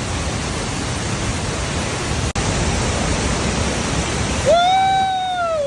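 Waterfall rushing loudly and steadily close by. Near the end, a person's long drawn-out vocal call starts and slides downward in pitch.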